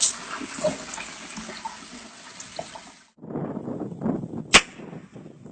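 Water running or splashing for about three seconds, cut off abruptly; then a rougher, lower noise with one sharp click near the end.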